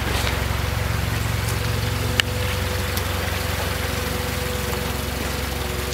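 Toyota forklift's LPG engine idling steadily, with a single sharp click about two seconds in.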